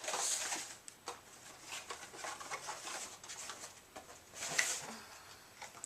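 Rustling and light knocks of product packaging being handled and set aside, in irregular bursts with a louder rustle near the start and another about four and a half seconds in.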